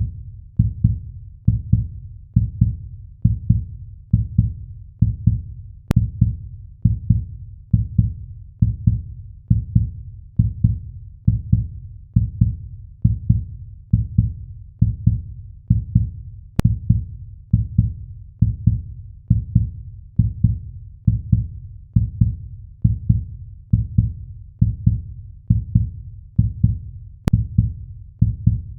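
Human heartbeat, a steady, deep double thump repeating at about one beat a second.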